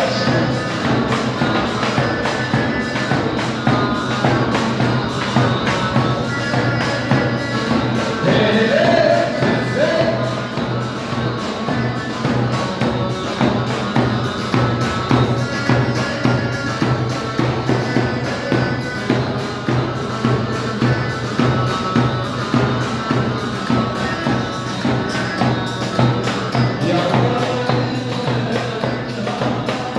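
Live dance music with a steady drum beat under a melody line.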